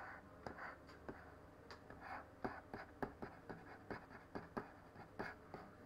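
Faint, irregular taps and light scratches of a pen stylus on a graphics tablet, a few a second.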